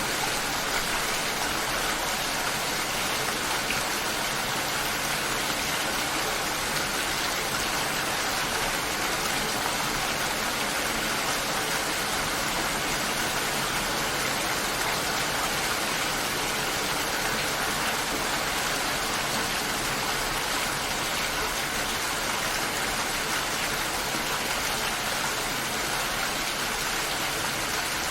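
Steady heavy rain falling, a dense, even hiss with no pauses or changes in strength.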